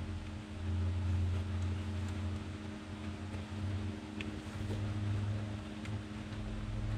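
Steady low mechanical hum, with a few faint short clicks about four and six seconds in.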